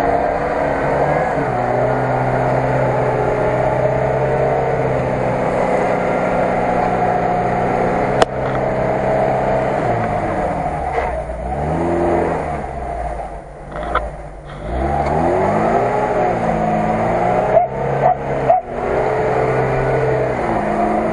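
Lada Niva's engine straining under load while stuck in deep mud, held at a steady pitch for about the first ten seconds, then revved up and down again and again as the driver rocks the car to get it free. A single sharp click about eight seconds in.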